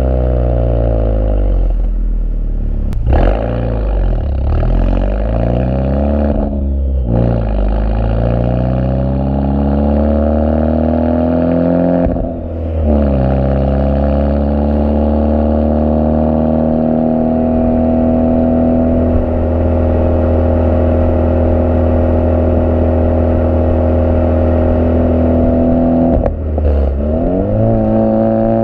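Honda Civic FK2 Type R's turbocharged 2.0-litre four-cylinder through a modified exhaust, recorded at the tailpipes while driving. The note rises and falls several times with gear changes and throttle lifts in the first dozen seconds. It then holds a steady drone for about thirteen seconds, and near the end it dips and climbs steeply again.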